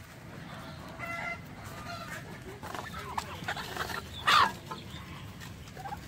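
Domestic fowl calling: a run of short clucks and calls, with one loud, sharp squawk a little past four seconds in.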